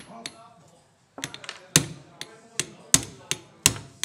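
Hammer blows on a chisel-like screwdriver set against the clutch assembly of a Honda Dax four-stroke mini engine, working the clutch loose. A run of sharp metallic strikes, about three a second, starts about a second in.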